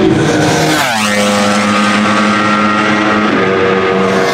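Racing superbikes going flat out past the microphone: about a second in one passes with a sharp drop in engine pitch, its high engine note holding steady as it pulls away. Another bike passes with the same pitch drop near the end.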